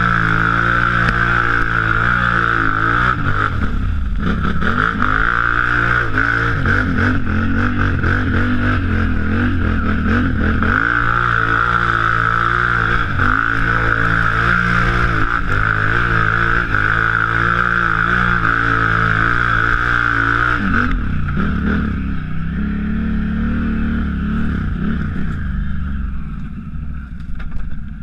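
Can-Am ATV engine revving hard under load, the revs rising and falling as it churns through deep mud, with a steady high whine over it. About three quarters of the way through the whine drops away and the engine eases off, running quieter near the end.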